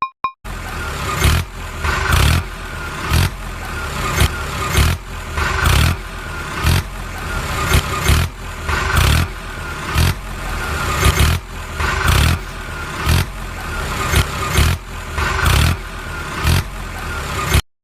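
Steady mechanical running noise, like an engine or motor-driven machine, with a heavy rhythmic thump about once a second. It starts and cuts off abruptly.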